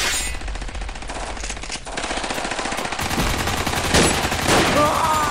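Rapid automatic gunfire sound effects, a continuous rattle of shots that grows steadier and faster about two seconds in.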